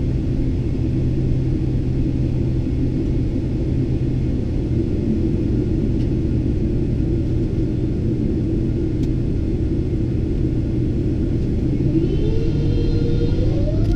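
Boeing 777-300ER's GE90 jet engines: a steady low rumble, with a rising whine starting about two seconds before the end as the engines spool up.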